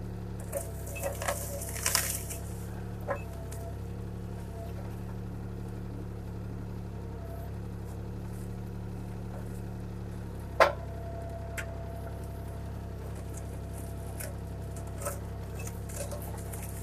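CAT 303C CR mini excavator's diesel engine running steadily while the bucket works brush and trees, with scattered knocks and cracks of wood in the first few seconds. One sharp knock comes about ten and a half seconds in, after which a steady higher whine joins the engine.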